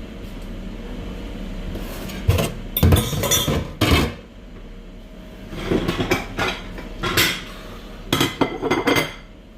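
Kitchen clatter of dishes and utensils being handled: a string of knocks and clinks, in two clusters, a few seconds in and again near the end.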